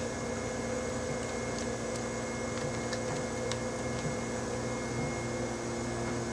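A steady machine hum made of several held tones over a faint noise, with a few faint ticks.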